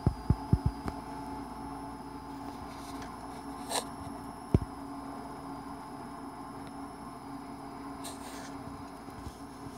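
Steady electrical hum with a few soft knocks in the first second and a single sharp click about halfway through.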